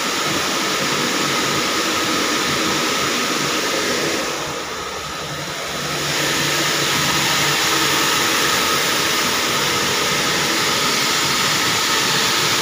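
Knitting machines running in a workshop: a steady mechanical whirr with a faint whine, dipping quieter for a moment about four and a half seconds in before coming back up.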